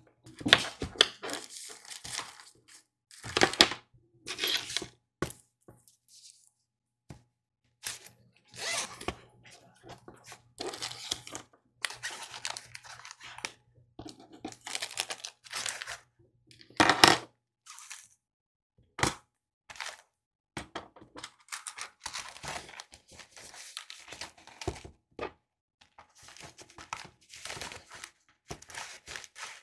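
Close-up handling of fabric zipper pouches and small objects on a desk: irregular rustling of cloth, zipper clicks and light knocks of items being set down, with scissors snipping near the start.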